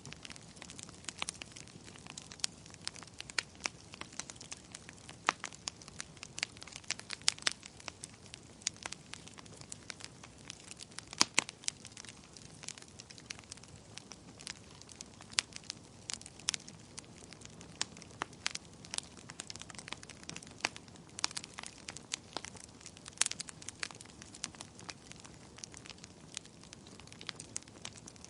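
Wood fire crackling in a fireplace: sharp pops and snaps at irregular intervals over a faint steady hiss.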